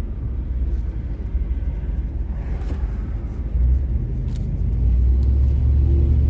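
1998 Chevy C1500 pickup driving, with a steady low engine and road rumble heard inside the cab. The engine note grows louder and steadier about three and a half seconds in, as the truck pulls.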